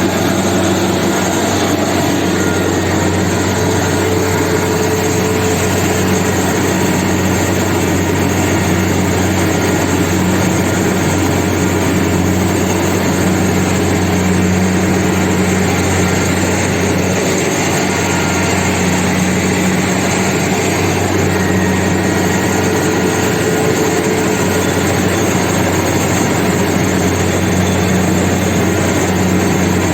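Kubota rice combine harvester running steadily, its engine holding a constant low hum under a busy mechanical noise.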